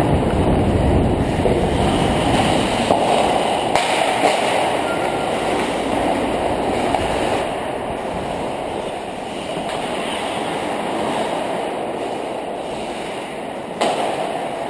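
Hockey skates scraping and carving on the ice, heard as a steady rumbling noise from a helmet-mounted action camera, mixed with wind on the camera. The noise eases off about halfway through, with a few sharp knocks along the way.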